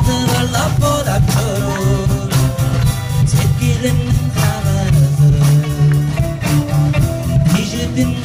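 Background song with a steady beat, guitar and a singing voice.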